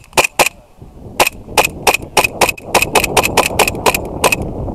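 Airsoft pistol firing about sixteen sharp, snapping shots: three in quick succession, then after a short pause a steady string of about four shots a second. A rushing noise rises underneath from about a second in.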